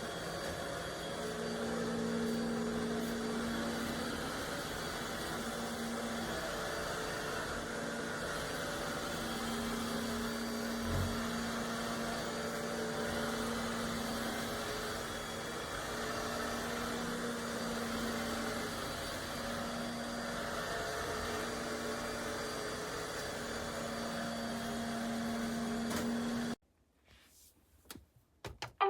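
iRobot Roomba Combo j7+ robot vacuum running steadily, a low motor hum with a tone that fades in and out, and a soft bump about eleven seconds in. The sound cuts off suddenly near the end, followed by a few clicks.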